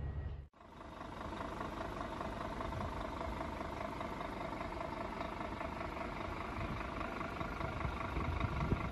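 Scania G320 truck's five-cylinder diesel engine idling steadily. It comes in after a brief break near the start.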